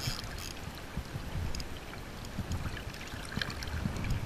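River water lapping and sloshing at the bank right beside the microphone, with irregular low rumbling surges.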